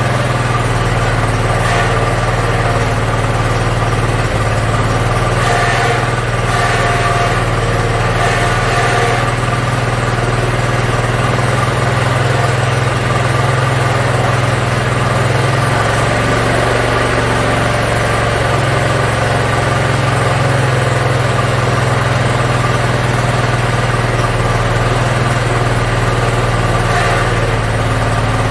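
Riding lawn mower's small gasoline engine running at a steady idle, its carburetor freshly cleaned.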